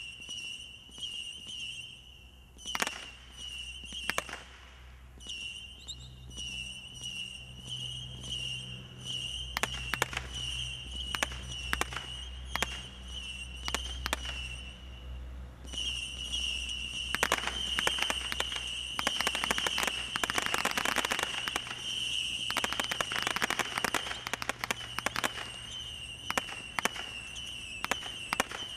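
Xccelerator 200-shot Category 2 combination Roman candle firing: an irregular string of sharp shots and pops that thickens into a dense, crackling volley about two-thirds of the way through. A steady high whistling tone runs under the shots, dropping out briefly a few times.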